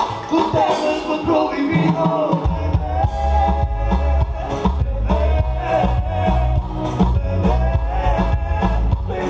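Live band playing through a PA system with a singer; heavy bass and a steady drum beat come in about two and a half seconds in.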